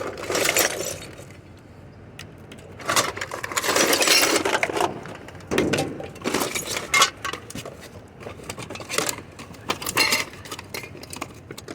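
Rummaging through a pile of discarded household junk: objects shifted and handled, with irregular rustling, knocks and small metallic clinks and rattles.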